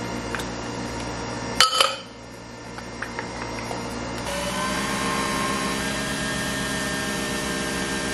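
Nespresso pod espresso machine brewing a double espresso. A sharp clack comes about a second and a half in, then the machine's motor starts about four seconds in and runs with a steady hum while the coffee pours.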